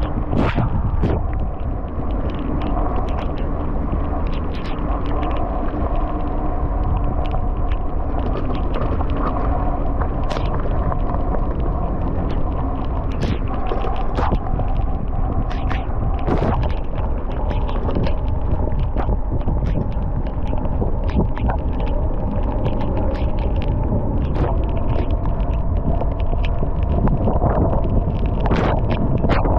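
Storm wind rumbling across a GoPro's microphone while riding a mountain bike in heavy rain, with a faint steady hum and many scattered sharp clicks throughout.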